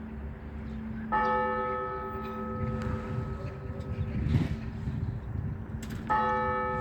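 Orthodox church bell struck twice, about five seconds apart, each strike ringing on over the hum of the lower bell tones. Bell ringing for a church service. A brief rush of noise comes near the middle.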